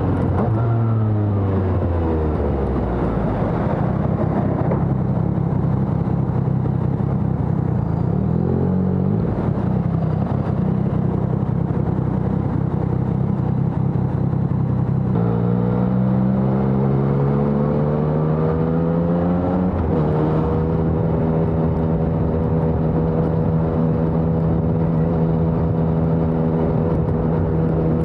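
Yamaha XSR900's three-cylinder engine through a LeoVince Evo One full exhaust system, ridden: the pitch falls as it slows over the first few seconds, runs steadily, then rises under acceleration from about halfway and drops suddenly at a gear change, settling into a steady cruise.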